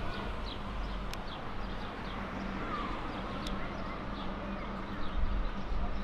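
Outdoor street ambience: birds chirping in short, high, falling notes, repeated many times, over a steady low rumble of traffic and wind.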